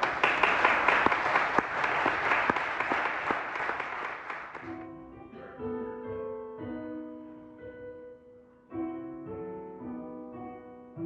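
Audience applauding for about five seconds, then a piano playing slow, quiet chords as the introduction to the next song.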